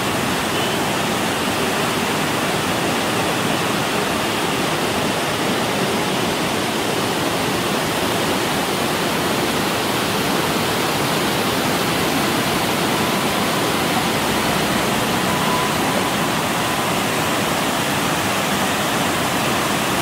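Water rushing through a sluice gate and churning white over its concrete baffle blocks: a loud, steady rush.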